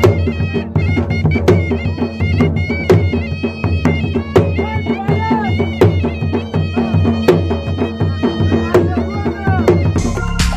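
Folk dance music: a dhol drum beating a steady rhythm, with a strong stroke about every second and a half, under a wavering pitched melody. Just before the end it cuts abruptly to electronic music.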